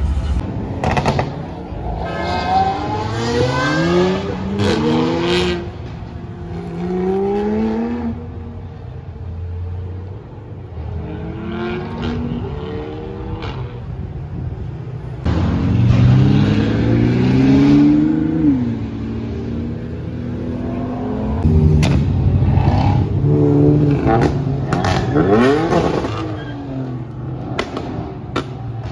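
Car engines revving and accelerating hard several times, each time rising steeply in pitch. The longest and loudest run comes about midway, with more near the start and toward the end, over a steady low engine rumble.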